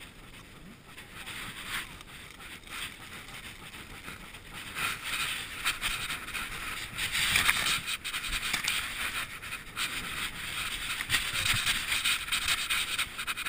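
Long grass rustling and scraping against a dog-mounted action camera as a German shepherd noses and paws through it, in irregular crackly bursts that grow louder about five seconds in.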